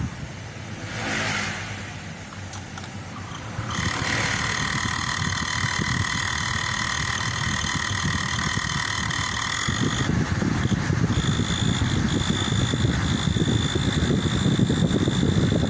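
Toyota Kijang Kapsul's AC blower fan running with a steady high whine over a low rumble, the noise that the blower is being fixed for. The whine comes in about four seconds in and changes pitch partway through.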